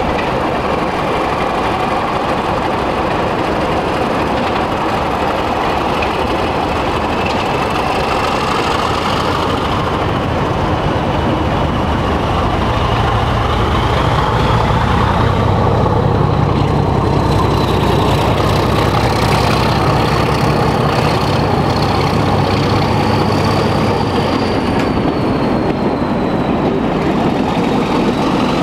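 A diesel-hauled passenger train approaching and passing, with the engine of its Class 33 diesel locomotive growing louder from about halfway through. A high whine climbs in pitch over the engine and then holds.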